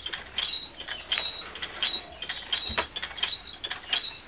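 Small metal jingles shaken in a steady rhythm, about three sharp jingles a second, as the Chadar Badani puppet box is worked. There is one duller knock about two and a half seconds in.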